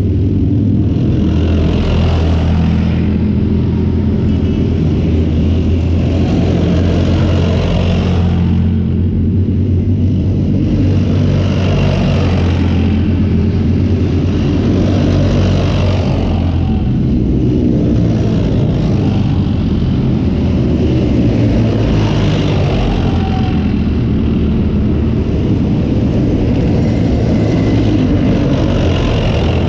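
A column of Leopard 2 main battle tanks driving past, their V12 diesel engines running with a loud, steady low drone. The noise of the engines and tracks swells and fades every few seconds as the tanks go by one after another.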